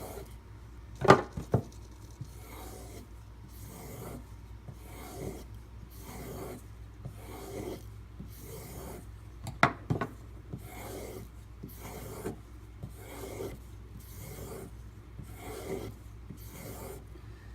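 Kershaw Crown knife blade in 8Cr13MoV steel being stropped: a steady run of back-and-forth rubbing strokes, about one and a half a second. Sharp knocks sound about a second in and again near ten seconds.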